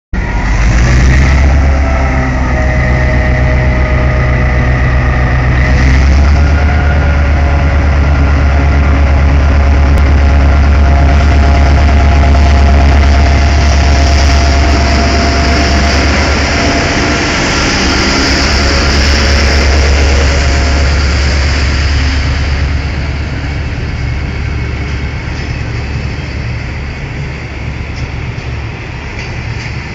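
Class 661 'Kennedy' diesel-electric locomotive (an EMD G16) passing close, its two-stroke diesel engine giving a loud, steady low drone. Its passenger coaches then roll by with a rising hiss of wheels on rail, and the engine drone fades away.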